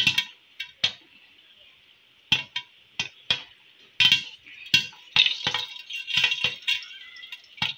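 Popcorn kernels popping in hot oil inside a covered steel pan with a glass lid: scattered sharp pops that come more often from about four seconds in, over a steady sizzle. The lid clinks against the pan.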